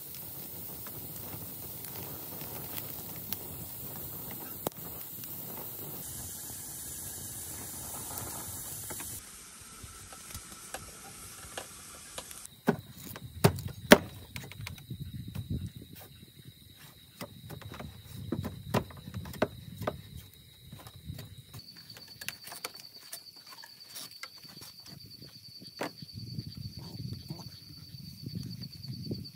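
A wood fire burning with a steady hiss and crackle for about the first nine seconds. From about twelve seconds in come sharp knocks and scrapes as a bamboo tube is cut and tapped with a knife and a block of wood, the loudest strikes a second or so later. A steady high insect trill runs behind the knocking.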